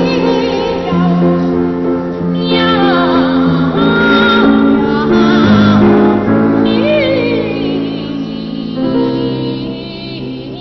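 Two boy sopranos singing a duet with grand piano accompaniment, the voices taking turns and swooping up and down in pitch.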